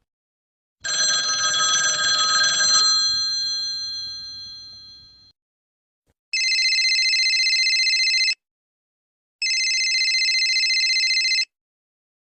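A ringing metallic tone that fades away over about four seconds, then a telephone bell rings twice, each ring about two seconds long with the fast trembling of an electric bell.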